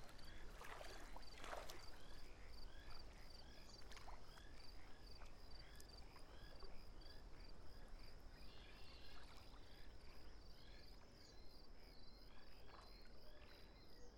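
Faint evening crickets chirping in a steady, rapid pulse, with another short chirp repeating about twice a second. Water splashes a couple of times about a second in.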